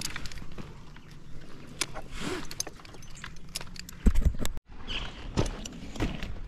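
Small clicks, clinks and rustling of a tree climber's gear, rope and hands against eucalyptus bark, with a heavy low thump about four seconds in.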